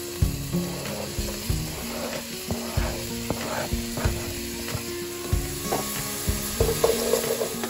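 Diced red onions sizzling as they drop into hot oil in a steel pot, with repeated taps and scrapes of a plastic cutting board against the pot.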